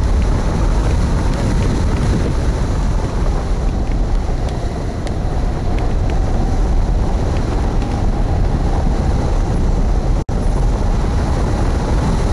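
Loud, steady wind buffeting the microphone of a wing-mounted camera on a hang glider in flight, heaviest in the low rumble. The sound drops out for an instant about ten seconds in.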